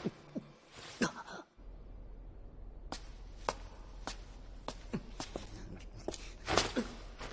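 Footsteps of two people walking on a hard floor: scattered sharp taps about every half second over a low steady hum. They start after a brief hush about a second and a half in, and the loudest comes about six and a half seconds in.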